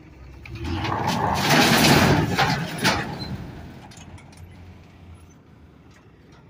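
Broken concrete slabs sliding off a tipped dump trailer bed and crashing onto the ground: a scraping, clattering rumble that builds about a second in, with a last sharp knock near three seconds, then dies away. A truck engine runs low and steady underneath.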